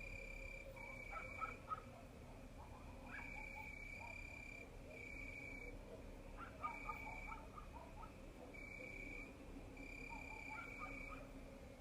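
Crickets chirping on a summer evening: a steady, high-pitched trill broken into short repeated bursts, each about half a second long. Softer, scattered animal calls lie beneath them, at a lower pitch.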